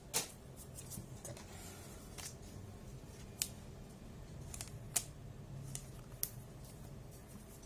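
Trading cards being handled: a few light, sharp clicks and taps spread irregularly over several seconds.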